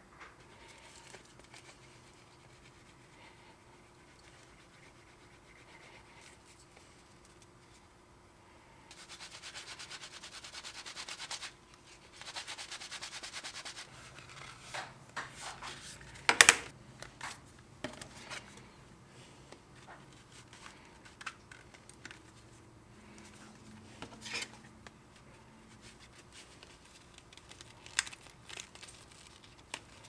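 Leather card holder edges sanded on a sanding block: two steady raspy passes of a few seconds each. Then light handling of the leather, with scattered small ticks and one sharp click.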